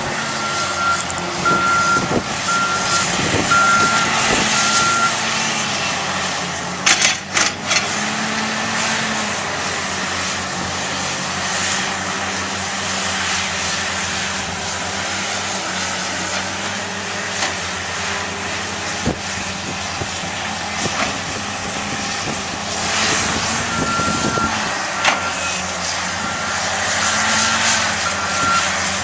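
Heavy diesel earthmoving machine running steadily under work, with a reversing alarm beeping in a regular series for the first few seconds and again near the end. A brief burst of sharp clanks about seven seconds in.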